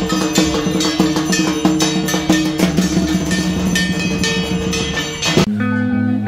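Puja arati music: rapid, dense drumming with bells over sustained ringing tones. About five and a half seconds in it cuts off abruptly to guitar background music.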